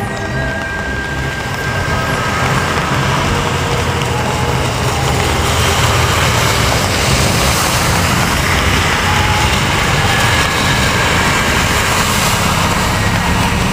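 A car moving through heavy rain: a steady wash of rain and tyre noise on wet pavement, getting louder about two seconds in.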